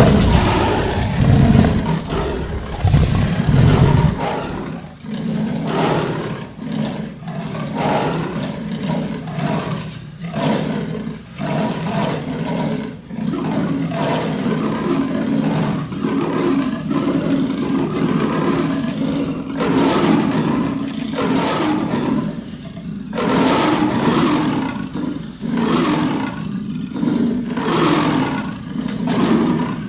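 Monster roar sound effect for a seven-headed wild beast: deep, heavy roaring for the first few seconds, then a long run of separate roars following one another about a second apart.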